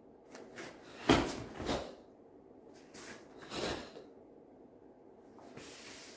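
Karate gi snapping and swishing with fast hand techniques, in several short bursts. The loudest and sharpest is about a second in, with a low thump that fits a bare-foot step on the foam mat, and a longer swish comes near the end.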